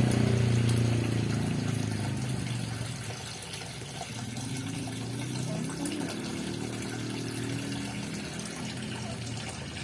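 Water running and splashing into a fish pond, a steady rushing. A low hum fades out over the first couple of seconds.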